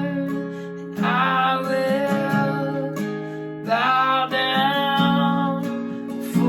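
Acoustic guitar strumming sustained chords in a worship song's instrumental passage, with fresh strums about a second in and again near four seconds.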